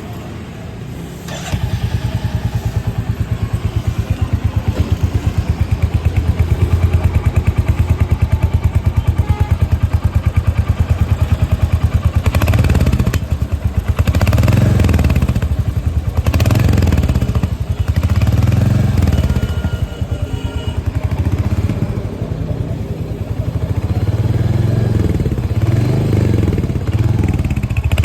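Royal Enfield Hunter 350's stock single-cylinder engine starting up about a second and a half in and idling with a steady thump. From about halfway on, the throttle is blipped repeatedly, the revs rising and falling roughly every two seconds.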